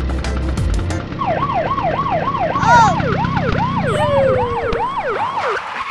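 Cartoon police siren sound effect, a fast yelp of quickly repeating falling wails, about three a second, that starts about a second in after a moment of background music.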